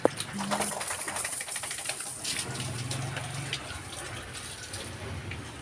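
Running water, loud for about two seconds near the start, then fainter.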